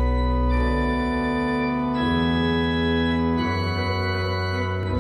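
Background music: sustained chords over a deep bass, the chord changing about every one and a half seconds.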